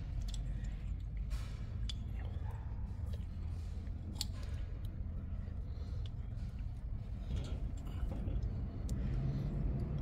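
A few small metallic clicks and taps, two sharper than the rest, as brake pads and their retaining pin are handled in a motorcycle's front brake caliper, over a steady low background hum.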